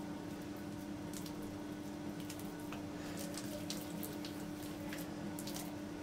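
Oiled hands kneading and shaping soft dough: faint wet squishes and small sticky clicks, more of them in the second half, over a steady low hum.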